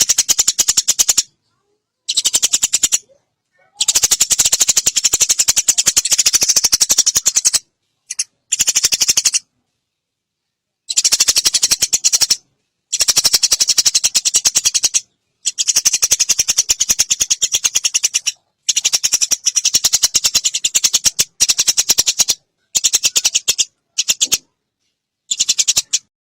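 Eurasian tree sparrow chattering: long, very rapid strings of sharp high chips in about a dozen bouts of one to four seconds, broken by short silent gaps.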